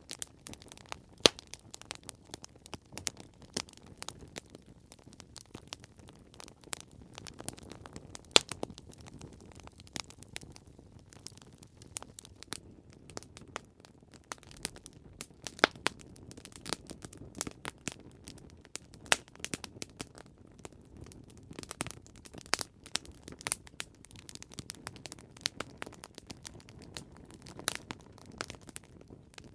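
Campfire crackling: a steady low rush of burning wood with frequent irregular sharp pops and snaps, a few much louder than the rest.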